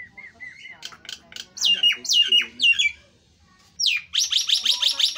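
Caged Nias hill myna singing loudly. It starts with a run of short whistled notes, then gives several loud whistles that slide down in pitch, and after a short pause a fast run of loud, sharp notes, several a second, near the end.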